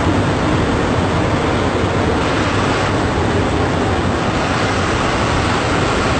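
APSRTC Super Luxury bus running at speed, heard from the driver's cab: a steady, loud mix of diesel engine drone and road and wind noise.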